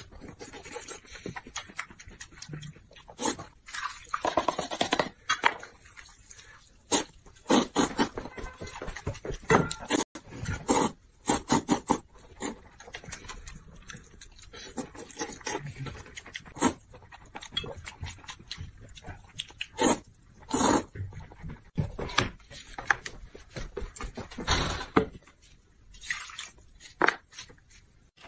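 Close-miked eating sounds: noodles slurped and a green pepper bitten and chewed, in irregular loud bursts of slurps and smacks.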